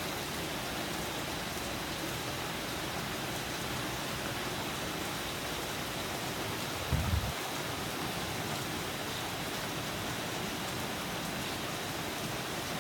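Steady rain falling in a storm, an even hiss throughout. About seven seconds in there is a brief low thump.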